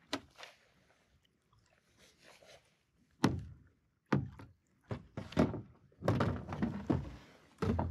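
Hollow thunks and knocks of a paddle and gear bag against a sea kayak's hull and deck. One knock comes at the start, then a string of them from about three seconds on, busiest a little past the middle.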